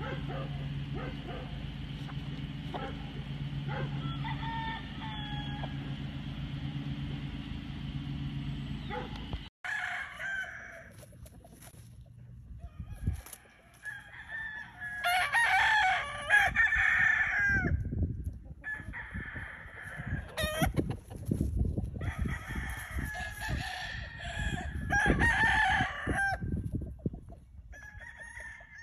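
Roosters crowing repeatedly, several long crows with clucking in between. A steady low hum runs under the first third, then stops abruptly.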